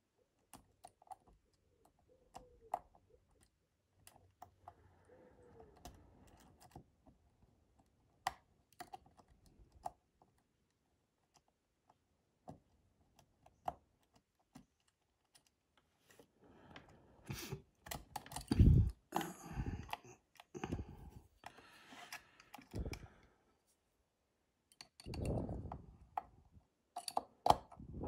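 A dimple pick working the pins inside an ABS Avocet pin-in-pin dimple lock cylinder: faint scattered metal ticks and clicks, turning into a busier run of clicking and scraping over the second half, with a few louder low knocks of handling the pick and lock.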